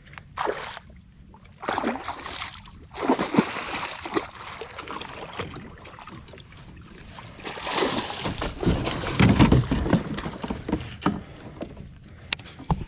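Water splashing and sloshing as a northern snakehead is netted beside a plastic kayak and brought aboard, in several irregular bursts, the heaviest about eight to ten seconds in. Two sharp clicks near the end.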